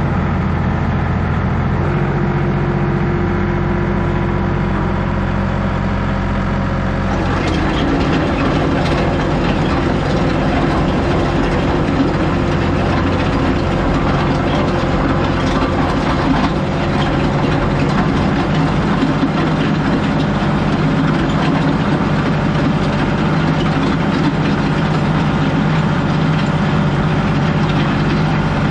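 John Deere 2038R compact tractor's three-cylinder diesel engine running steadily. About seven seconds in, a rattling clatter joins the engine and the whole sound gets fuller.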